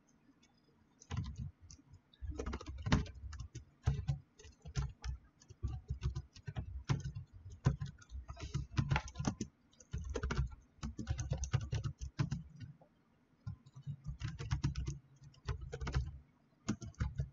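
Typing on a computer keyboard: quick runs of keystroke clicks in bursts, with short pauses between them.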